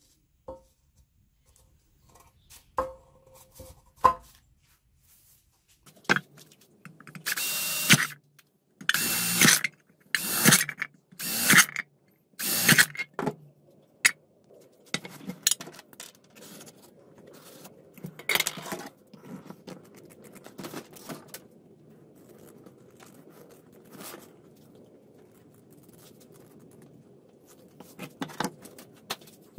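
Power drill boring holes through a tin can in about five short bursts, with quieter clicks of handling the metal around them. Near the end there are a few snips of scissors.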